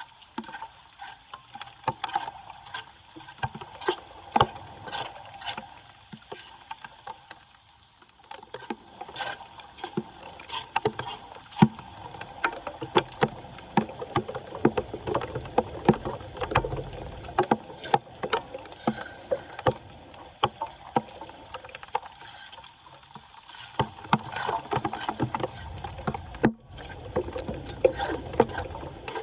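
Water sloshing and splashing, with many scattered clicks and knocks, as debris is cleared from a flooded street drain.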